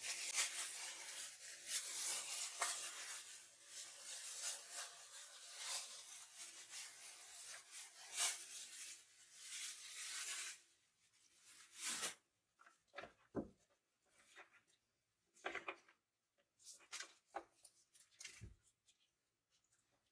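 Faint rubbing and rustling handling sounds for about ten seconds, then a few scattered light taps and rustles.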